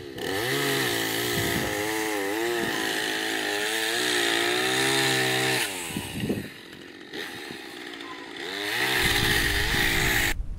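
Chainsaw running and revving up and down while cutting in a tree. It eases off to a quieter stretch a little past halfway, comes back up loud, then cuts off suddenly near the end.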